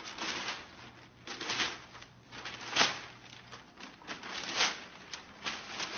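Newspaper rustling and crinkling in a series of bursts as a golden retriever grabs the pages in its mouth and pulls at them, the sharpest rustle about halfway through.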